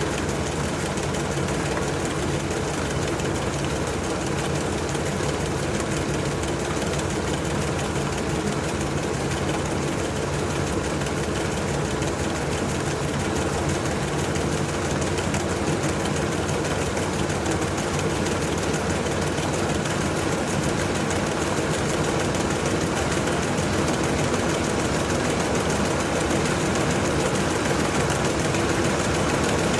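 LG TurboDrum WT-R852 washing machine running through a cycle: a steady motor and drum hum with a few low steady tones over a wash of noise, growing slightly louder toward the end.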